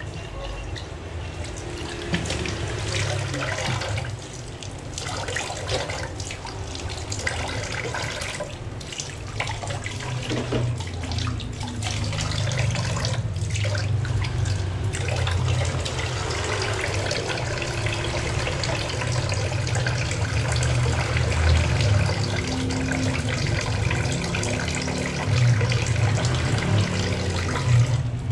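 Kitchen tap running into a stainless steel sink as dishes are rinsed and scrubbed by hand, water splashing over a glass and into a soapy pan, with occasional light knocks.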